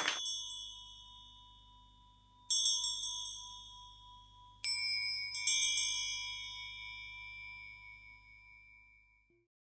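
Four struck bell-like chimes, each ringing on and slowly fading, the third and fourth coming close together, over a faint low hum; the ringing dies away near the end.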